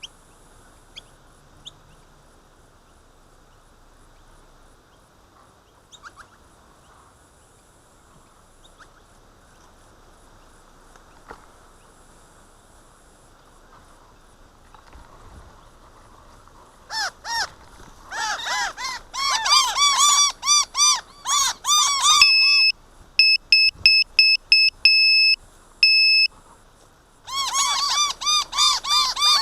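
After a long stretch of faint background hiss, miner birds break into loud, rapid, repeated scolding calls, the alarm-mobbing they give around an intruder. The calls pause for a run of short, even electronic beeps at one pitch, then start up again.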